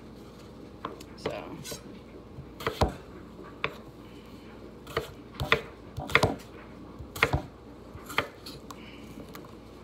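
Kitchen knife cutting red potatoes on a wooden cutting board: irregular sharp knocks of the blade striking the board, roughly one every half second to a second.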